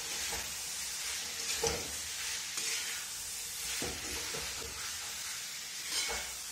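Boiled potato pieces being stirred into sizzling tomato masala in a metal kadai: a steady frying sizzle, with the metal spatula scraping and knocking against the pan every second or two.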